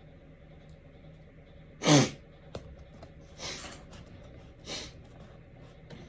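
A single loud sneeze about two seconds in, dropping in pitch, followed by a light click and two shorter hissing bursts of noise.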